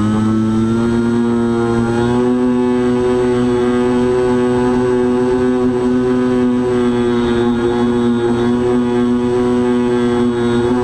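FPV model aircraft's motor and propeller running steadily, heard from the onboard camera, a loud droning note that steps up slightly in pitch about two seconds in.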